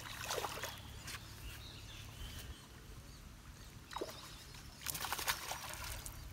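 Water splashing as a released matrinxã kicks away at the surface, a short splash about half a second in, then another brief burst of noise around five seconds in, over a steady low rumble.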